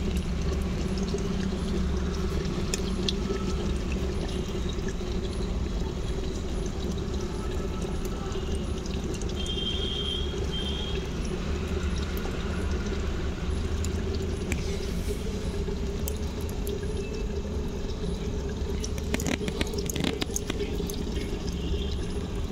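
Chicken curry simmering in a clay pot over a wood fire in a clay stove: a steady bubbling, watery noise with a low rumble. A few sharp clicks come near the end.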